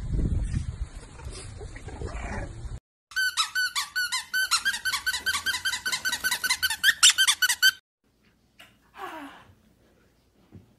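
Low rumbling wind noise on the microphone for nearly three seconds. After a cut comes a rapid run of high-pitched squeaks, about six a second, lasting nearly five seconds. A brief faint sound follows near the end.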